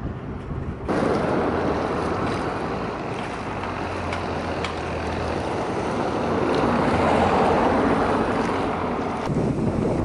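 Steady wind on the microphone mixed with water washing at the harbour's edge, with a low steady hum underneath. It starts abruptly about a second in and shifts again near the end.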